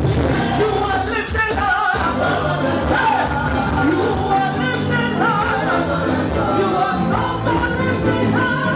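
Live gospel praise-and-worship music: a band playing with singers over it, recorded through a camera microphone so it sounds a bit crackly.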